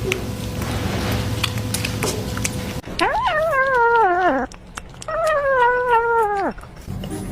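A cat giving two long, drawn-out meows a little over a second apart, each wavering and sliding down in pitch at the end.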